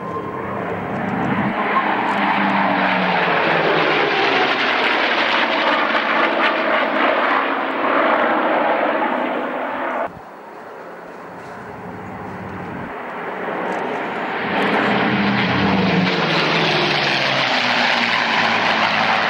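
Formation of four piston-engined WWII fighters flying past, their engines and propellers droning loudly. The sound cuts off abruptly about halfway through, then builds again as the formation makes another pass.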